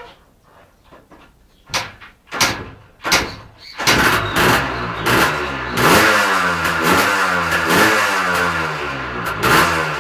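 Yamaha DT 180's two-stroke single-cylinder engine being started: three short bursts as it fires briefly, then it catches about four seconds in and keeps running, its pitch wavering up and down with the throttle.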